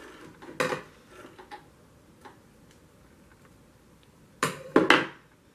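Light clicks and handling noises at a stopped sewing machine as the sewn fabric is taken out from under the presser foot and the thread is handled. Two louder short noises come about four and a half seconds in.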